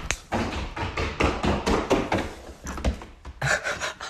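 A baby goat's small hooves tapping and scraping irregularly on a hardwood floor as it walks and skitters.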